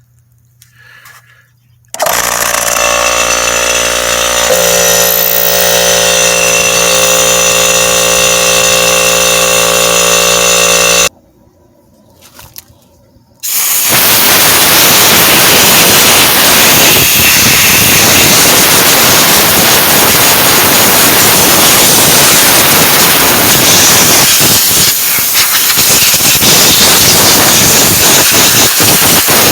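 Goodyear 3-gallon oil-free air compressor running with a steady pitched motor-and-pump drone for about nine seconds, then cutting off. A couple of seconds later comes a long, loud, steady hiss of compressed air blown through a fan motor to clean the dust out.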